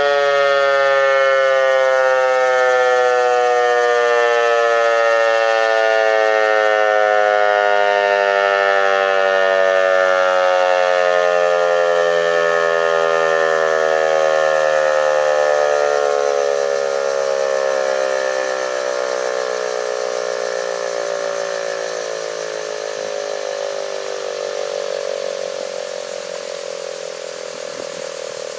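Federal Signal 508 rotating dual-tone outdoor warning siren winding down at the end of its test, its loud wail sliding slowly and steadily lower in pitch. From about halfway through it grows gradually fainter as the rotor coasts to a stop.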